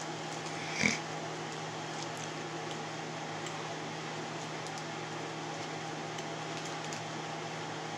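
Steady mechanical hum with a constant low drone, like a kitchen appliance fan. One short, sharp clink comes about a second in, and a few faint ticks follow.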